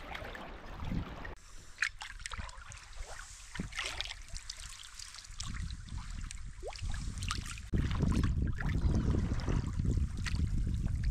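Wooden kayak paddle dipping into calm sea water, with scattered splashes and drips from the blade on each stroke. Wind rumbles on the microphone at the start and again from about two-thirds through.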